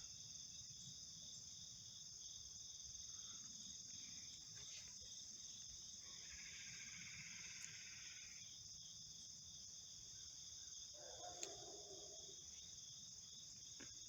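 A steady chorus of crickets and other insects at dawn. A faint, drawn-out call comes about halfway through, and a distant dog barks faintly near the end.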